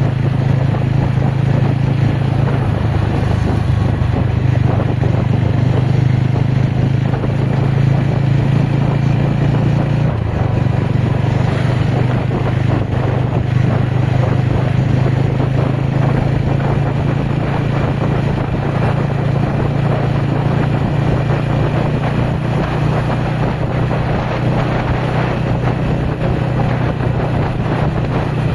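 Ronin motorcycle's engine running steadily on an off-road ride, under a constant rushing noise, with a small change in engine note about ten seconds in.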